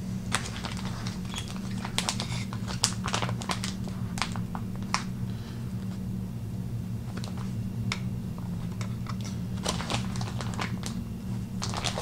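Irregular light clicks and crinkles from handling raw bacon strips, pulled from a plastic package and hung on the white plastic prongs of a microwave bacon rack, over a steady low hum.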